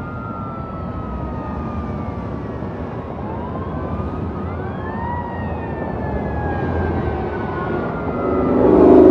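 Fire engine siren wailing as the engine approaches, its pitch sweeping up and down over the low rumble of traffic. A loud, steady horn blast comes in near the end.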